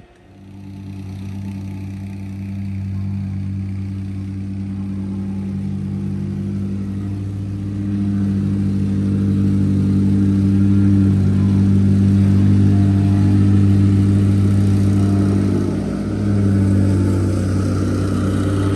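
A vehicle engine running steadily. It fades in over the first couple of seconds, gets louder about eight seconds in, and dips briefly near the end.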